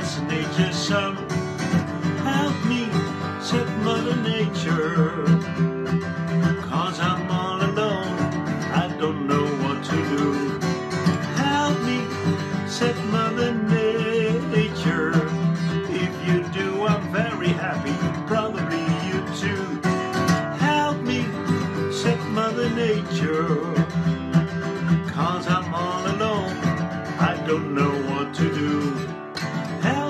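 Acoustic guitar strummed steadily, with a man singing over it.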